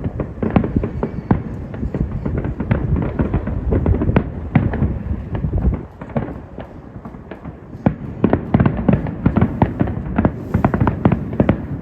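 Fireworks exploding in rapid, overlapping booms and cracks. They thin out briefly about halfway, then come thick and fast again.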